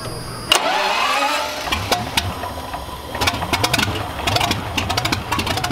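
1918 Curtiss OX5 liquid-cooled V8 aircraft engine starting up about half a second in, then running unevenly at low speed with its wooden propeller turning.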